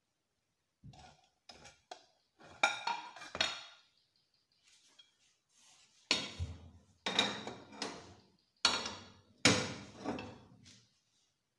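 Kitchenware clattering: a ceramic plate and an aluminium cooking pot knocked and set down on a gas stove top. It is a string of sharp clinks and knocks with short ringing, light and sparse at first, then loud and heavier in the second half.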